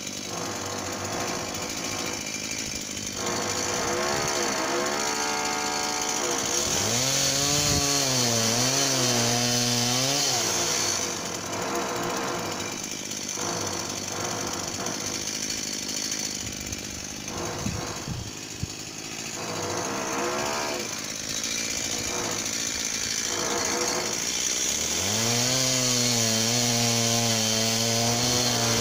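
Stihl MS 170 two-stroke chainsaw revved up twice, first around a quarter of the way in and again near the end, its pitch dipping and wavering as if under cutting load, with a hiss over the top. Between the two bursts the engine drops back to a lower, quieter running.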